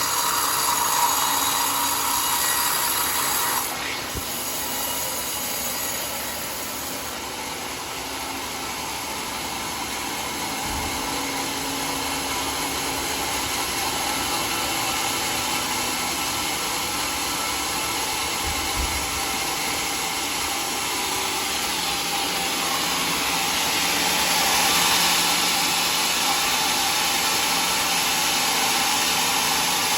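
Sawmill machinery running with a steady mechanical noise; it drops in level about four seconds in and grows louder again after about twenty-two seconds.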